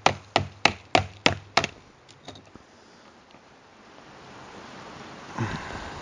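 Quick, even sharp clicks, about three a second, from pliers working a wire hook against the rim of a plastic plant pot; they stop about a second and a half in. A faint hiss and a single soft knock follow near the end.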